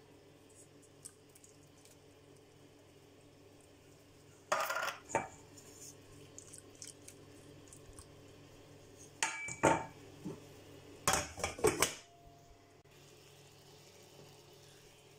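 Cookware clattering: a tin can and a wooden spoon knocking and scraping against a stainless steel saucepan, in three short bursts about four and a half, nine and eleven seconds in.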